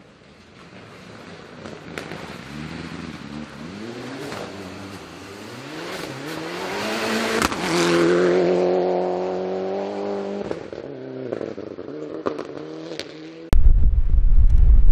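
Mitsubishi Lancer Evolution rally car's turbocharged four-cylinder engine accelerating hard on gravel, its pitch climbing through several gear changes as it approaches, loudest as it passes with a sharp crack, then dropping and fading away. Near the end the sound cuts abruptly to heavy wind buffeting on the microphone.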